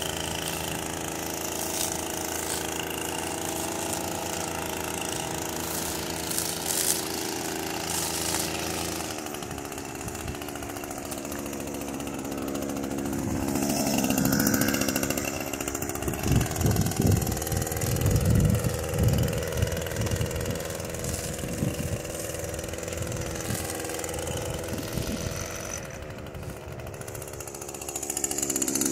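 Gas string trimmer's small two-stroke engine idling steadily while it is carried, with irregular low thumps partway through, then speeding up near the end as it starts cutting tall grass.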